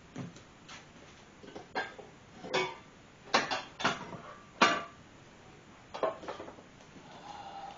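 Metal cutlery clinking and knocking against cookware in a series of short, sharp clatters, the loudest a little past halfway.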